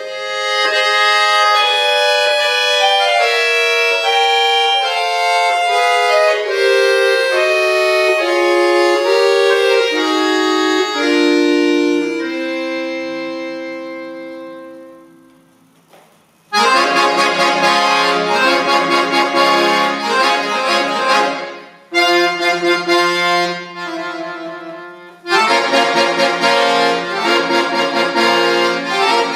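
Chromatic button accordion playing a slow falling line of held notes that dies away on a long held chord. After a moment's silence, loud, dense repeated chords begin, broken by two brief pauses.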